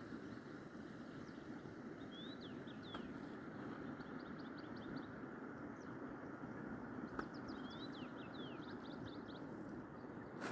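A mountain river flowing steadily, with a small bird singing twice over it, each song a quick run of short high notes.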